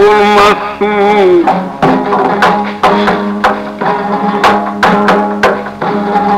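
Traditional Uzbek maqom-style music: a sung line ends about half a second in, then an instrumental passage follows, with a hand drum beating a steady rhythm of about two strokes a second under sustained melody notes.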